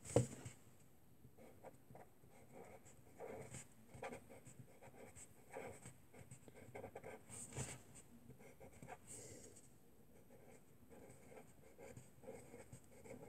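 Faint scratching of handwriting on paper, in short, irregular strokes.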